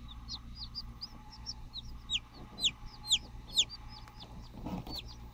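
Newly hatched chicken chicks peeping: a quick run of short, high-pitched chirps that fall in pitch, several a second, loudest in the middle.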